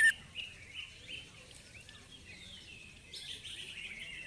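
Caged male cucak ijo (green leafbird) calling in a worked-up ('emosi') state: a sharp, loud downward-sliding whistle at the very start, then a few softer chirps over the next second and faint twittering near the end.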